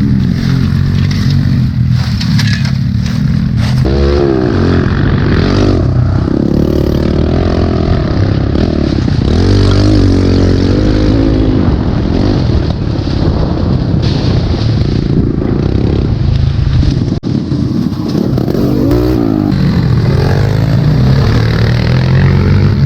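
Pit bike engine being ridden hard, its pitch climbing and dropping again and again as the throttle is opened and closed.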